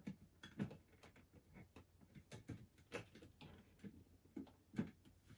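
Faint, irregular plastic clicks and knocks as the cover of a Robus outdoor light fitting is handled and pushed back onto its plastic base.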